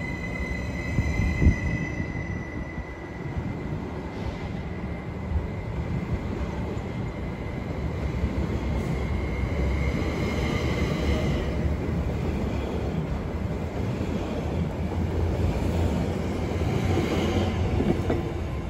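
SOB Stadler Traverso electric multiple unit rolling slowly past along the platform, a steady rumble of wheels on rail. A high electric whine fades out after about two seconds, and the wheels squeal briefly a few times.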